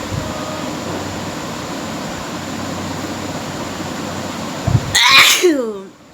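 A woman sneezes once, loud and sudden, with a falling voiced tail, about five seconds in, after several seconds of steady background hiss.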